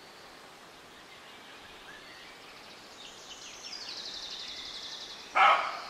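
Faint outdoor ambience with a small bird's rapid, high-pitched trill starting about three seconds in, then a single short, loud animal call near the end.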